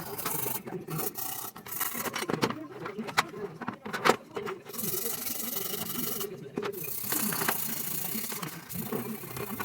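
Repeated rubbing and scrubbing strokes on a hard surface, the sound of parts being cleaned, with a few sharp clicks near the middle.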